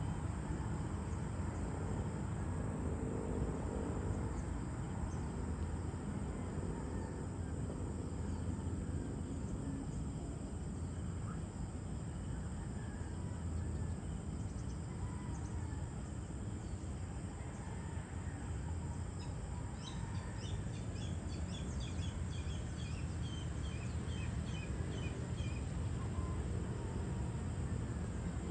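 Evening outdoor ambience: a steady low background rumble. About two-thirds of the way through, a bird calls a quick run of short repeated chirps for several seconds.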